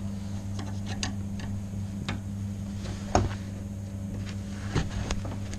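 Scattered light clicks and taps of a screwdriver working the slot of a ball-type isolation valve on a toilet's water inlet pipe, turning the water supply off. A steady low hum runs underneath.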